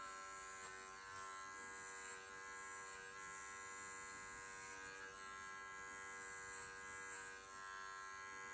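Wahl Bravura 5-in-1 clipper running with a steady buzz, its 40 blade shaving the short hair on the inside of a dog's ear.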